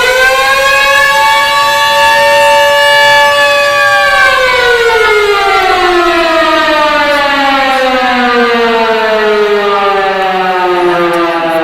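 Simulated tornado warning siren played from a siren app. The wail holds a steady pitch for about four seconds, then slowly winds down, falling in pitch.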